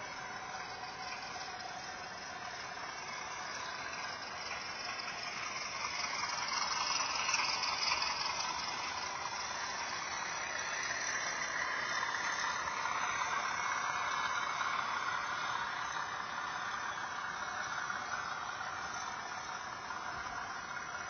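Model railway goods train of wagons rolling past close by, a steady rattling whir of small wheels on the track and motor. It grows louder from about five seconds in as the train draws level, then eases off slightly near the end.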